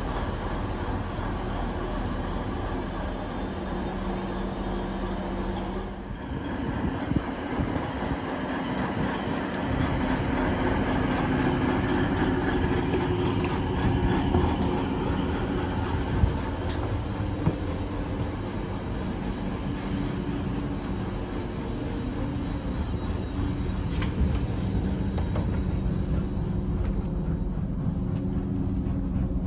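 DB class 612 tilting diesel multiple unit standing with its underfloor diesel engine idling: a steady mechanical hum with low even tones. A few light clicks and knocks break in over it.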